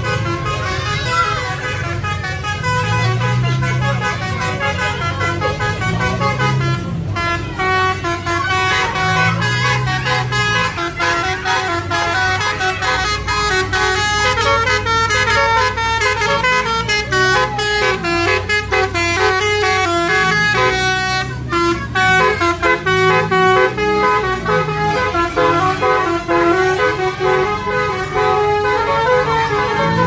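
Bus telolet basuri multi-tone air horn, sounded through twelve roof-mounted trumpets, playing a long run of quickly changing notes in a tune.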